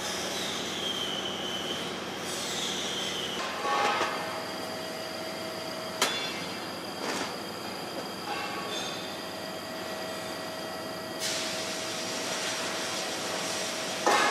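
TIG welding arc on stainless steel: a steady hiss carrying a thin high-pitched whine that wavers in pitch for the first few seconds and then holds steady. There are a couple of light clicks midway.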